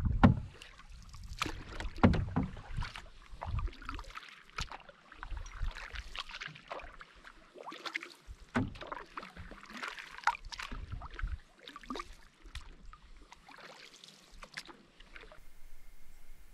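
Canoe paddles dipping and pulling through calm lake water, with irregular splashes and drips from each stroke. Near the end this gives way to a quieter, steady hiss.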